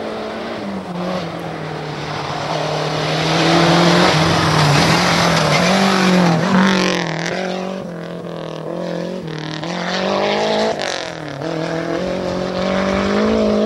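Rally car engines revving hard on a gravel stage, the pitch climbing and dropping again and again with gear changes and lifts off the throttle. From about three to seven seconds in a car passes close, loudest there, with a rush of tyre and gravel noise.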